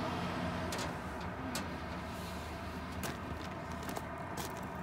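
Footsteps crunching on gravel, a handful of separate scuffs and crunches, as a man gets down from a forklift and walks across a gravel yard. A faint low steady hum runs underneath.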